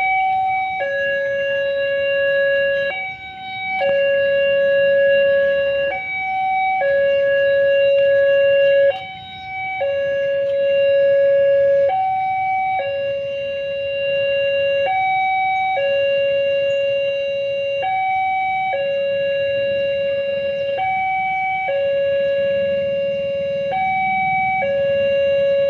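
Railway level-crossing warning alarm sounding a repeating two-tone electronic signal, a short higher note followed by a longer lower note about every three seconds, the warning that the barriers are down for an approaching train.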